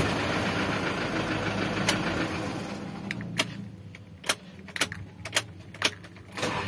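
Mitsubishi Triton's common-rail diesel engine running rough, the sound dropping off about halfway through, with several sharp irregular clicks in the quieter part. The mechanic blames the rough running and white smoke on leaking injectors or on the combustion chamber.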